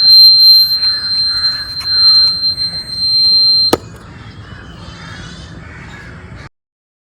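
A homemade doorbell's electronic buzzer sounding one steady high-pitched tone, which cuts off with a click a little under four seconds in.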